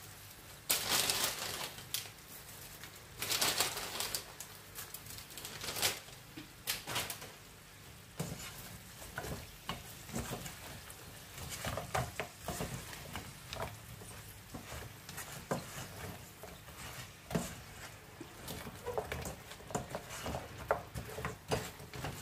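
A silicone spatula stirring sticky honey-glazed fried turkey wings in a hot nonstick frying pan, the sauce sizzling lightly. A few longer wet bursts come in the first six seconds, then many short scrapes and taps of the spatula against the pan.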